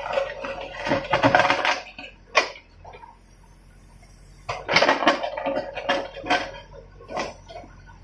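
JCB backhoe loader's steel excavator bucket scraping through broken stone rubble, stones clattering and grinding against it in two spells of a couple of seconds each, with single clacks between. A faint low engine hum runs underneath.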